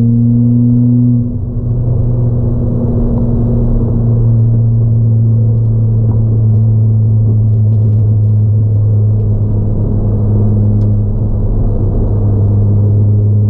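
Ford Fiesta ST180's 1.6-litre turbocharged four-cylinder, fitted with a 3-inch aftermarket exhaust and ITG intake, droning at a steady pitch inside the cabin while lapping a race track. About a second in the note breaks up and dips briefly, then the steady drone returns.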